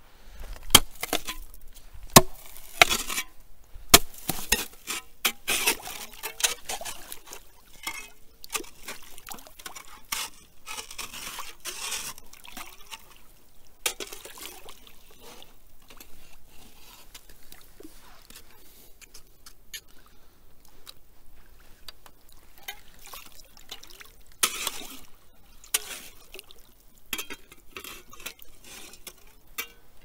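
Water splashing and sloshing irregularly, with several sharp clicks and knocks in the first few seconds and another cluster about three-quarters of the way through.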